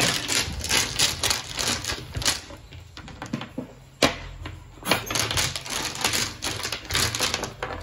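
Domino tiles being shuffled by hand on a table: a dense, irregular clatter of tiles clicking against one another, with a couple of sharper knocks about four and five seconds in.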